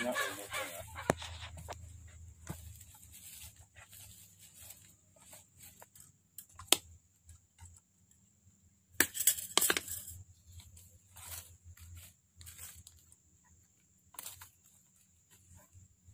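Bonsai training wire being wound by hand around ficus branches: scattered rustling and scraping of wire against bark and twigs, with a few sharp clicks and a louder patch of scraping about two thirds of the way through.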